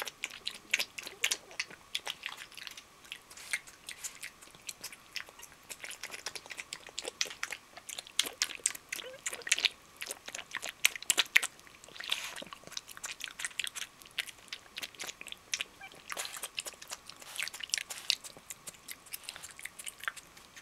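Small black pig eating wet food from a bowl: fast, irregular wet chewing and smacking that runs on without pause.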